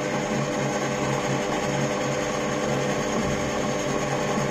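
Variable-speed mini lathe driven by a 550 W DC motor, running with no load at about 600 RPM, chuck spinning. It gives a steady, even hum and runs smoothly.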